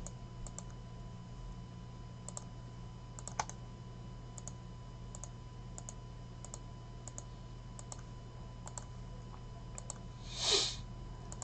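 Faint computer clicking: light clicks, mostly in pairs, coming every half second to a second, over a steady low hum. About ten and a half seconds in there is a short rush of noise.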